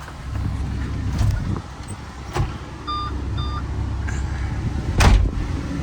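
Hino diesel engine of a Kobelco SK210LC-9 excavator idling steadily, heard from inside the cab. A few knocks, two short beeps about three seconds in, and a loud thump about five seconds in.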